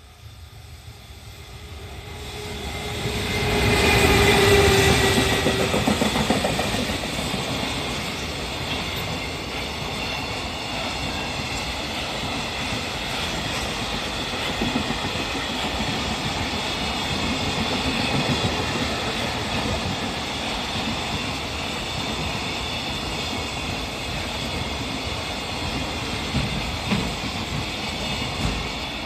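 EF210 electric locomotive passing close, hauling a long container freight train. The sound builds over the first few seconds and is loudest as the locomotive goes by about four seconds in. Then comes a steady rumble of the wagons rolling past with a rhythmic clickety-clack of wheels over rail joints, tailing off at the very end.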